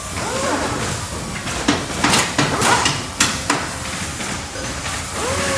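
Factory ambience: a steady din of machinery with a run of sharp metal clanks and bangs about two to three and a half seconds in.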